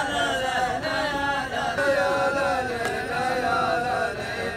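Rows of men chanting a rajaz verse together, the long drawn-out notes of many male voices overlapping. No drum or instrument strokes are heard.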